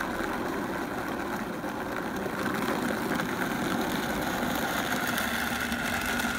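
Vitamix blender motor switching on at low speed and running steadily, chopping whole raw cranberries in orange juice. It grows a little louder as the speed dial is turned up.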